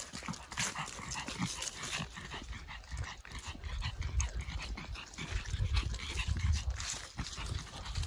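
A Pekingese breathing heavily as it hurries along, with footsteps crunching through dry fallen leaves and a dense run of crackles; a low rumble swells in the middle.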